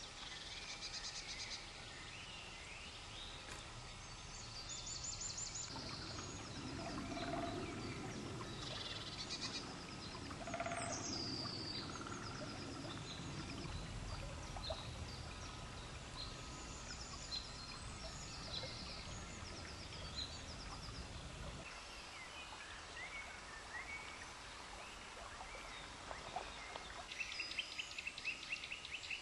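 Several woodland songbirds singing and calling at once: short chirps, whistles and trills, with a rapid trill near the end. A low rumbling noise runs under them through the middle stretch.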